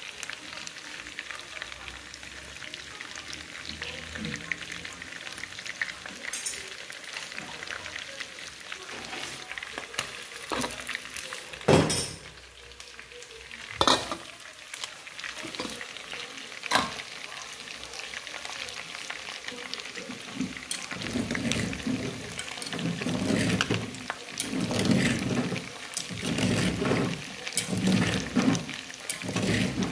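Chicken pieces frying in hot oil in an aluminium pot: a steady sizzle with fine crackling. Three sharp knocks come near the middle, and louder uneven surges of sizzle come in the last third.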